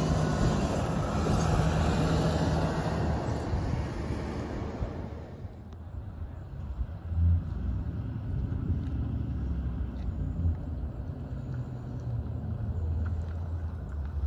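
A loud, even rush of noise for the first five seconds, then the low engine rumble of a school bus as it drives up the street and turns the corner, swelling briefly a couple of times.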